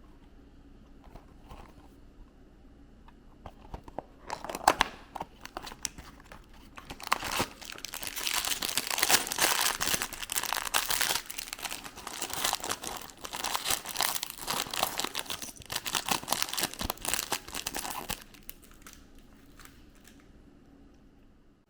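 Packaging being crinkled and torn open by hand: a dense run of crackling and rustling with sharp crackles that lasts about fourteen seconds, starting about four seconds in and stopping near the end.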